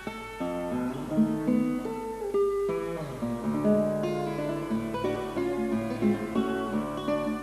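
Background music: acoustic guitar playing a melody of plucked notes.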